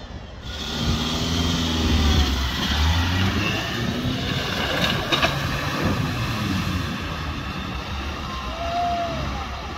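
Land Rover Freelander 1 engine revving up and down as it drives through deep muddy ruts, with tyres churning and splashing through mud and water. A few brief knocks come about halfway through.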